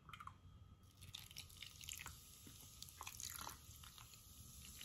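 Faint trickling and splashing of a soft drink poured from a can into a glass baking dish of soy-sauce marinade, with a few light clicks, busiest a couple of seconds in.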